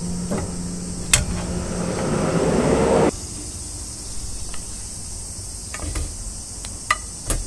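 Chicken leg frying in hot oil and teriyaki sauce in a steel wok. The sizzle swells for about two seconds and cuts off suddenly about three seconds in, then goes on quieter, with sharp clicks of tongs against the pan.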